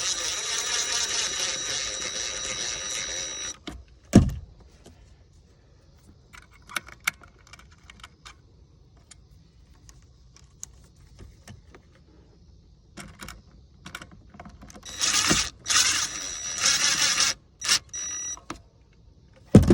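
Cordless electric screwdriver driving screws into the remote control's housing: a steady whir for about three and a half seconds, a sharp knock, then light clicks of handling. Near the end it runs again in several short spurts as the last screws are tightened down.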